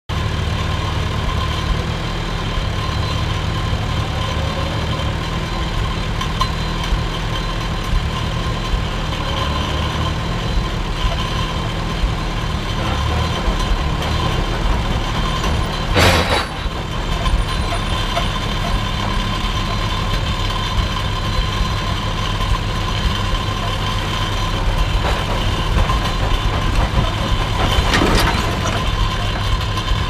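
Old farm tractor engine running steadily while pulling a wagon, with one sharp knock about halfway through and a weaker one near the end.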